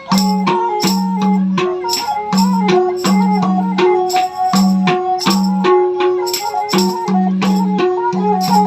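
Nepali folk instrumental: a bowed sarangi melody over a madal drum, with a sharp rattling beat about two or three strokes a second.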